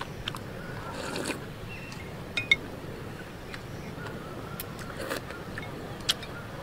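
Chopsticks clicking against a ceramic bowl, a few separate clicks with the sharpest about two and a half seconds in, with soft sipping as the last of the food and broth is taken straight from the tilted bowl.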